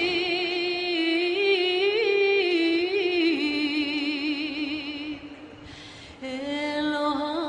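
A solo female voice singing slow, long-held notes with vibrato. It breaks off briefly about five seconds in, then goes on with a new phrase.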